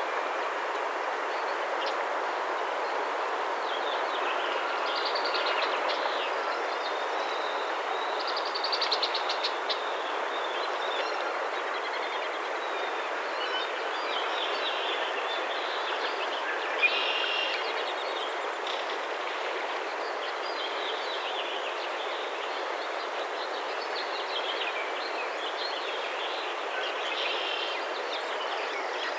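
Steady rushing outdoor background noise, with small birds calling over it now and then. There is a brief rattle of fast clicks partway through and one sharp knock later on.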